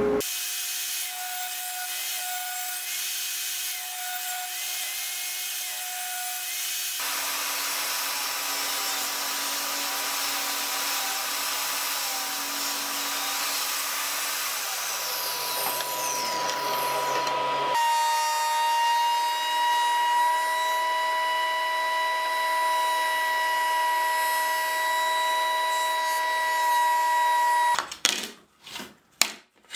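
Table saw running with a steady whine and the hiss of the blade ripping wood strips; the pitch of the whine changes abruptly twice. In the last two seconds, a few knocks and clatters of wooden boards being handled on a bench.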